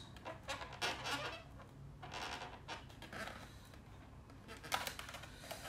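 Permanent marker drawing on an inflated latex modelling balloon: faint, short squeaky scrapes of the felt tip across the rubber, along with the balloon squeaking as it is held.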